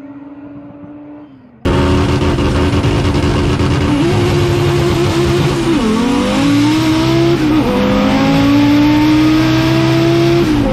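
Audi drag car's engine heard from inside the cabin at full throttle, its pitch climbing and dropping sharply at two gear changes about six and seven and a half seconds in, then falling away as the throttle is lifted near the end. For the first second and a half, before it starts, a car is heard more faintly running down the strip.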